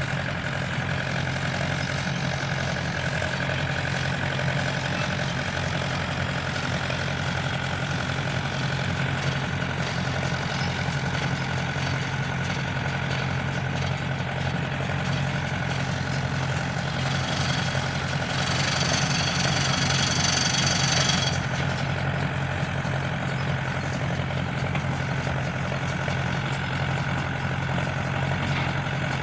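Tractor engine running steadily at a constant speed. For about three seconds past the middle it is joined by a louder, higher-pitched hiss with several whistling tones.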